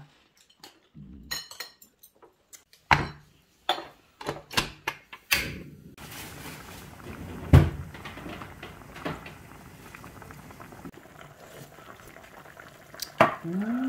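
Chopsticks and dishes clicking and tapping at a table. About halfway through, a pot of spicy yellowtail fish stew (maeuntang) bubbling on the boil, a steady hiss with one loud knock.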